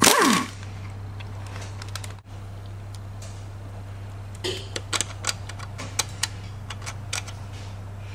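A single hammer blow on a steel number stamp, marking a Chevy 350 connecting-rod cap, with a brief metallic ring. From about four and a half seconds in come light, scattered metal clicks as the rod cap is handled, over a steady low hum.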